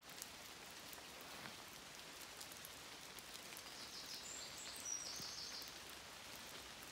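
Light rain falling, with scattered drops ticking on leaves and gravel. A short high-pitched chirping sound comes about four seconds in.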